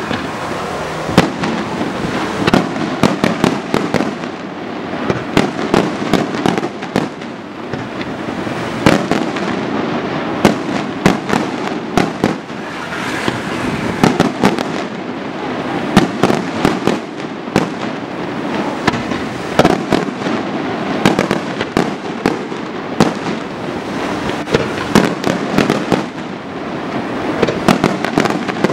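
Daytime fireworks going off in a dense, continuous barrage of sharp bangs and crackling reports, several a second, with louder single blasts standing out now and then.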